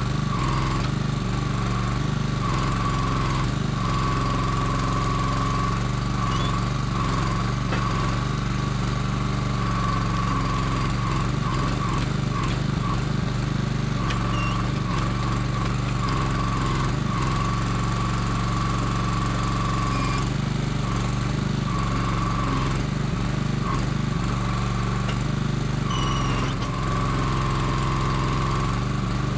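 Small engine running steadily to power a Kranman log loader's hydraulic crane, with a high whine that fades and returns several times as the crane is worked to lift logs.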